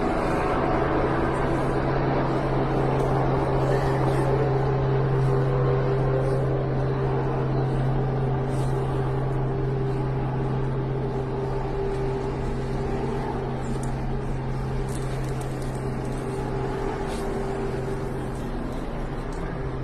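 A steady low mechanical hum, like a running engine, over an even outdoor background noise. It grows slightly quieter over the second half.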